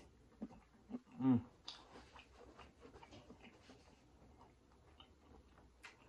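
A person chewing a mouthful of butter-sauced prawn close to the microphone: soft wet clicks and smacks of the mouth. A short hummed "mm" about a second in.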